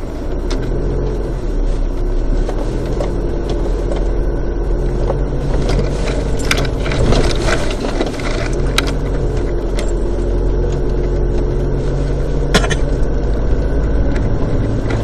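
Car engine running steadily at low speed, heard from inside the cabin as the vehicle drives a rough dirt track, with a few sharp clicks and rattles from the cabin as it jolts.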